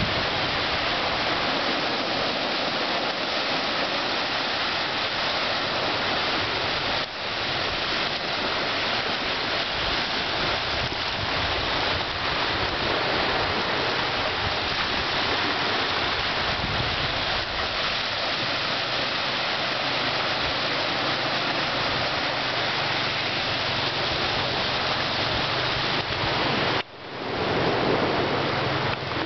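Steady rushing noise of small waves washing onto a sandy shore, mixed with wind. It drops out briefly near the end.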